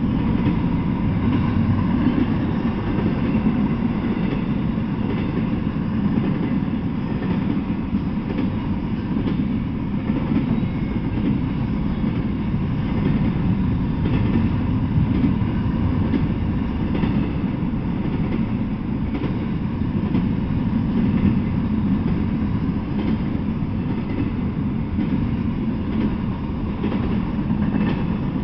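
Double-stack intermodal freight train's well cars rolling past at speed: a steady, unbroken rumble with faint, irregular wheel clicks.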